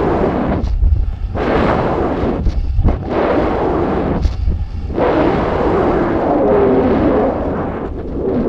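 Wind rushing over the microphone of a camera carried under a weather balloon: loud, rumbling gusts that surge and briefly drop away every second or two.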